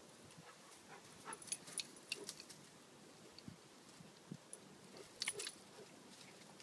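Leaves and twigs of a shrub crackling and rustling as a German Shorthaired Pointer pushes its head into the bush, in two short bursts of sharp crackles, about a second and a half in and again about five seconds in.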